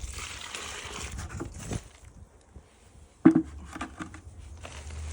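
Water pouring and splashing into a post hole of dry concrete mix, stopping about two seconds in and starting again near the end. A sharp knock with a few lighter clicks about three seconds in.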